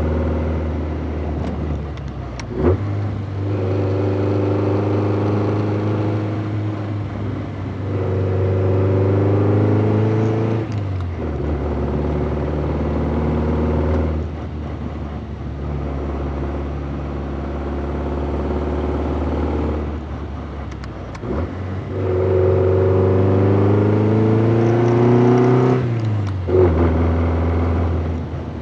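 Triumph TR3's four-cylinder engine heard from the cockpit while driving: the revs climb in several long rising runs, drop away, and climb again between stretches of steadier running. A few sharp cracks come where the revs fall.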